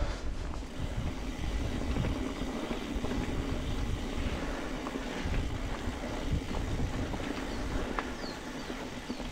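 Mountain bike rolling along a trail: steady tyre rumble and hum, with scattered small clicks and rattles from the bike.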